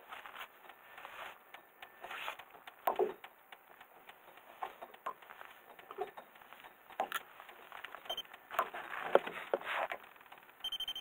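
Scattered faint knocks, clicks and rustling as people move about and handle gear in a small fishing boat.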